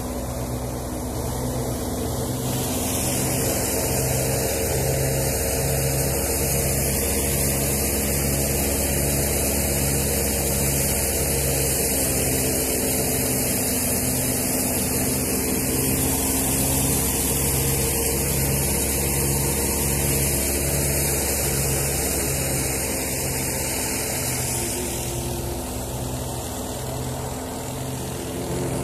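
Tractor-driven wheat thresher running steadily, a low engine drone with a throb a little more than once a second. A loud hiss rides over it, swelling a couple of seconds in and easing near the end.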